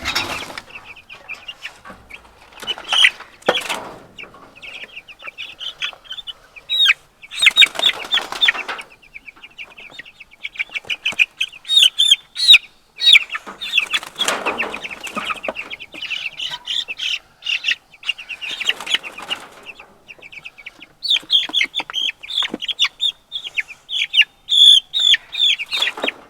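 Meat chickens calling continuously in quick, high chirps, with several short bursts of scuffling and wing flapping.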